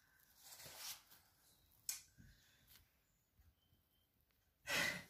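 Mostly near silence in a small room, broken by a faint soft rustle, a single short click about two seconds in, and a brief louder rustle near the end.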